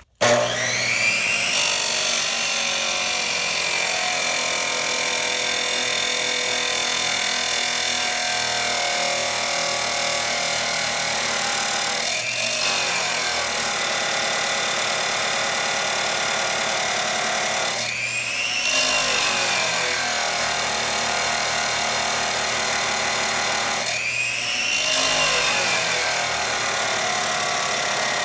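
Makita 2414 abrasive chop saw starts up abruptly and grinds into thick steel C-channel with a loud, steady grinding noise. Three times the sound briefly swells and dips as the load on the wheel eases and comes back. The saw does not get through the thick steel, which the owner puts down to it being beyond its limits, worn out or in need of brushes.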